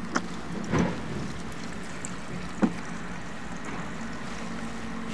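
A few short knocks and clatters, the sharpest about two and a half seconds in, over a steady low hum. These are handling sounds as petrol is drained from the generator.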